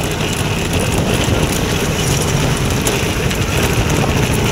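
Bullock cart rolling along a paved road: a steady rattle and rumble from its wheels and frame.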